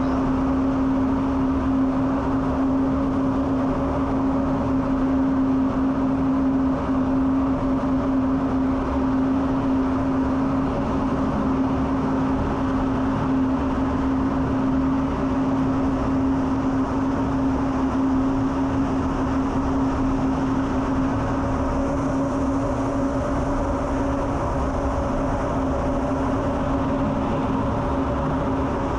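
F-16 cockpit noise in flight: a steady drone of engine and rushing air with a constant low hum.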